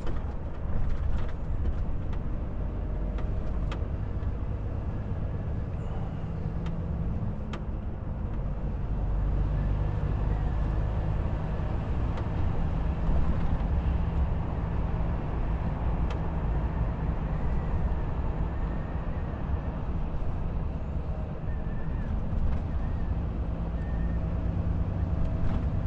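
Volvo FH truck's diesel engine and tyres heard from inside the cab, pulling steadily as the truck picks up speed from about 45 to 70 km/h. It grows louder about nine seconds in, and a few light clicks come in the first several seconds.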